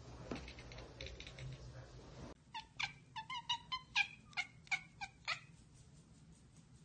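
A domestic cat chattering, the 'ekekeke' call a cat makes when it spots a bird or insect it cannot get to. It is a quick run of about a dozen short, clipped chirps, about four a second, starting a couple of seconds in and stopping over a second before the end. Fainter clicking comes before it.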